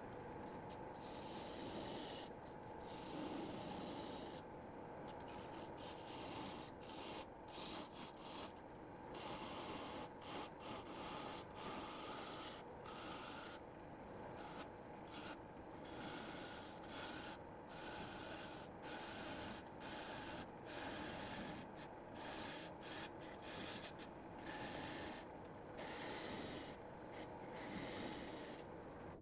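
Wood lathe running while a turning chisel cuts a spinning wooden mallet blank: a continuous scraping hiss of tool on wood over the lathe's steady hum, broken again and again by short gaps as the tool comes off the wood.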